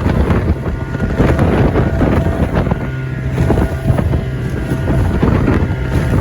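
14-foot Livingston boat's motor running steadily in rough water, with wind buffeting the microphone.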